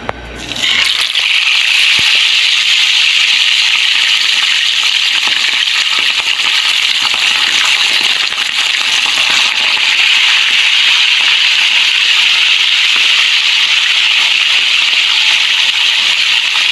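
Marinated fish sizzling as it goes into hot cooking oil in a frying pan, a loud crackling sizzle that starts suddenly about a second in and holds steady.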